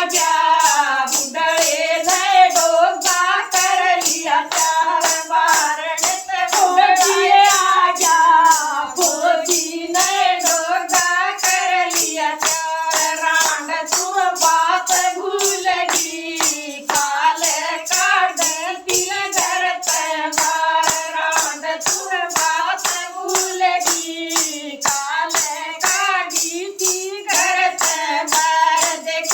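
Women singing a Haryanvi folk bhajan, accompanied by jingling percussion that keeps a steady quick beat.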